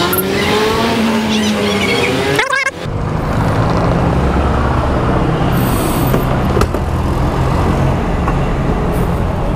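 Vehicle engine noise with road traffic. For the first couple of seconds an engine's pitch glides up and down; after a sudden short break a steady low engine hum runs on.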